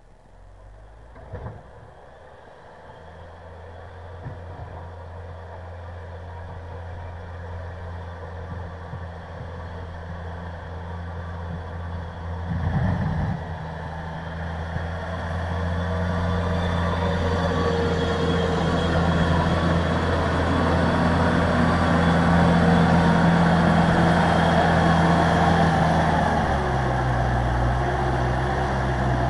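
Everun ER1500F compact wheel loader's engine running under load as it pushes heavy wet snow with its plow blade, growing steadily louder as it approaches. There is a brief louder clatter about halfway through, and the engine note drops near the end.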